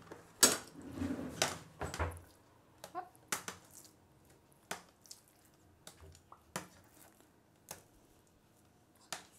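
Metal kitchen tongs clicking and tapping against a tray while slices of raw chicken breast are turned over. The sharp clicks come irregularly and are loudest in the first two seconds, then turn fainter and sparser.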